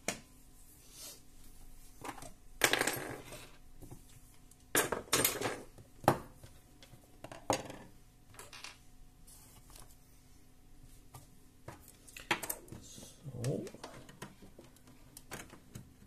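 Metal clinks, knocks and rattles of hands handling an opened desktop computer's steel chassis: a string of separate sharp sounds, the loudest a clatter about three seconds in and a cluster around five to six seconds in.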